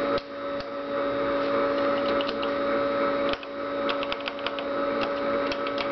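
Tracor AN/UGC-129 airborne teletype running with a steady hum, and a quick run of key clicks in the second half as its keyboard is typed on. No printing follows: the test switch that has just been flipped on disables the keyboard.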